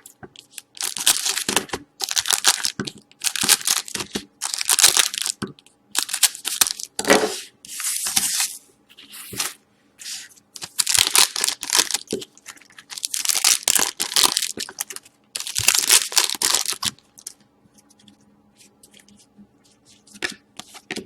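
Foil wrappers of 2012-13 Certified hockey card packs being torn open: a run of about ten short ripping sounds, then only faint clicks and rustles near the end.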